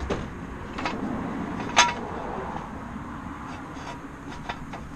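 A few sharp metallic clinks of a steel jack stand being slid under the car and set in place, the loudest just under two seconds in with a brief ring.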